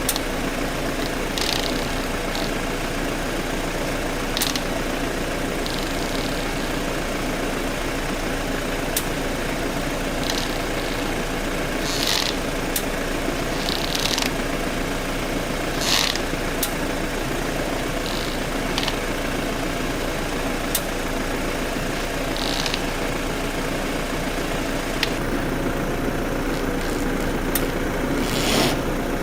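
BMW F10 idling steadily, with sharp ticks at irregular intervals about every second or two. This is the right-front-wheel ticking that the car makes when the steering is turned right.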